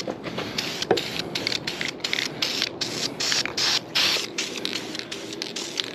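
Aerosol can of engine enamel spraying in many short hissing bursts, with a couple of longer sprays near the middle, and a sharp click about a second in.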